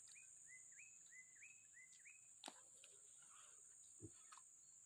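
Faint bird call: a quick run of about six short high notes, each rising and then levelling off, over the first two seconds. After that come a couple of faint clicks.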